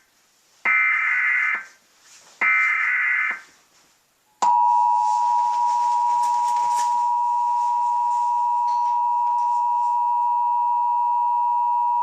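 Emergency Alert System SAME header data bursts, the last two of a set of three, each about a second long, encoding an Emergency Action Notification. About four and a half seconds in comes the EAS attention signal, a steady two-tone alert tone of 853 and 960 Hz, which holds on.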